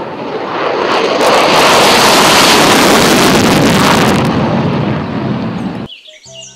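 F-16 fighter jet taking off on afterburner: loud, rushing jet engine noise that swells over the first second, holds, then fades and cuts off abruptly near the end, where music comes in.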